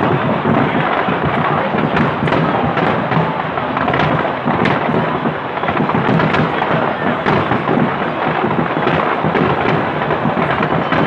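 Fireworks display going off in a dense, continuous barrage: many overlapping bangs and crackles over a steady booming rumble, with no gaps.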